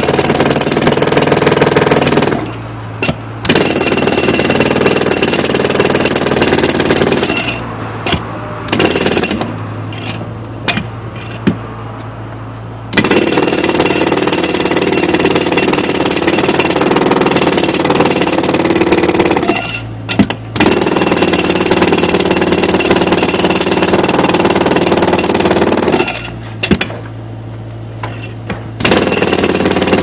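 Pneumatic jackhammer, fed by an air hose, hammering into a concrete slab and breaking it up, in long runs that stop four times, the longest pause about a quarter of the way in holding a few short blips of hammering. A steady low hum carries on through the pauses.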